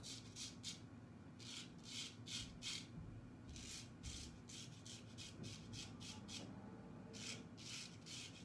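Straight razor shaving lathered stubble on the neck: faint, crisp scraping strokes in quick runs, with short pauses between the runs.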